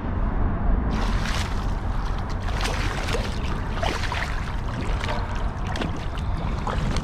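Water sloshing and splashing against a kayak hull, over a steady low rumble; the splashy hiss starts about a second in.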